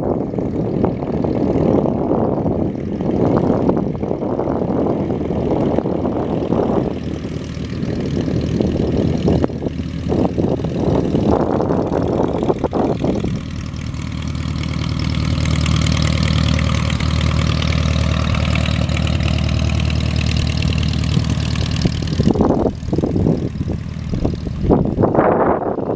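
Single-engine Piper Arrow's propeller engine running at low power while taxiing. It is a steady drone, heard most clearly for about eight seconds in the middle, with wind buffeting the microphone before and after.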